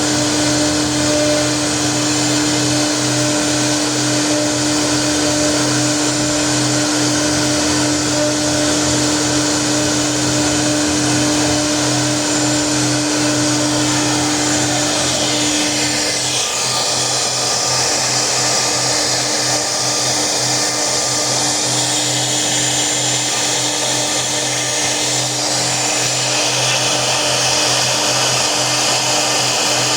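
CNC router running steadily with a constant high hum, the pitch of the hum shifting slightly about halfway through.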